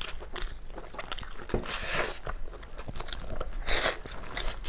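Close-miked eating of braised meat on the bone: wet bites, chewing and sucking at the meat, with a few clicks and louder wet mouth noises about two seconds in and again near the end.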